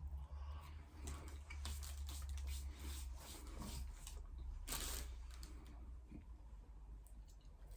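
A person chewing a cheese and onion pasty with small wet mouth clicks and crackles, over a low steady hum, with a short louder noise about five seconds in.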